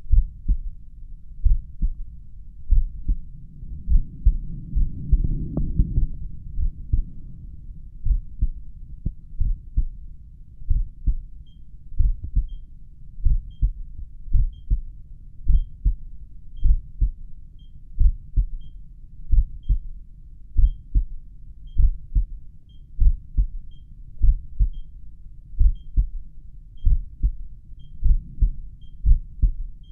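Slow resting heartbeat heard through a stethoscope at the mitral area: regular low lub-dub thumps, about 50 beats a minute. A brief rubbing noise comes about five seconds in. From about eleven seconds in, the pulse oximeter gives faint high beeps about once a second, its low-heart-rate alarm.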